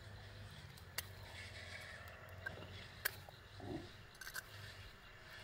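A steel rebar rod prying and scraping at an oyster shell to open it, with sharp clicks of metal on shell about a second in, a louder one about three seconds in, and a few quick ones near the end.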